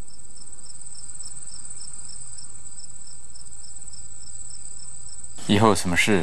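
Crickets chirping: a steady high trill under a second chirp that pulses evenly about two and a half times a second.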